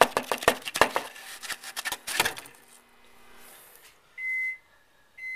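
Rapid knocking and rattling for about two and a half seconds as a non-dairy creamer that has set into one solid brick is shaken and knocked out of its canister onto cardboard. About four seconds in, an electronic appliance starts beeping: short high beeps about once a second.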